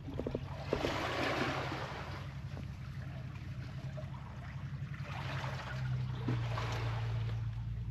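Small sea waves washing in among breakwater blocks, swelling twice, about a second in and again about five seconds in, over a steady low hum.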